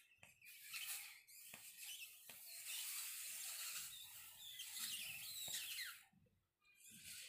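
Hard breath blown into a balloon stretched over the neck of a plastic bottle, inflating the balloon inside the bottle: a breathy hiss with short thin squeaks. It comes as a short blow, a brief break, then a long blow that stops about six seconds in.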